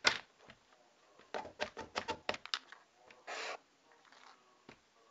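Handling noise of small objects on a wooden desk: a sharp click at the start, a quick run of small clicks and taps about one and a half to two and a half seconds in, a short rustle a little after three seconds, and one more click near the end.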